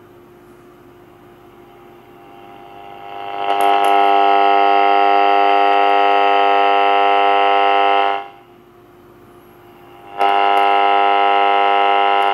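AM radio buzzing with interference picked up from a lit compact fluorescent bulb, as a steady pitched buzz over static. The buzz swells in about three seconds in, cuts out around eight seconds, and comes back suddenly about two seconds later, with faint hiss between.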